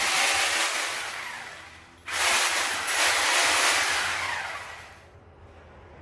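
Two bursts of loud hissing noise, each starting abruptly and fading away over two to three seconds, the second about two seconds in.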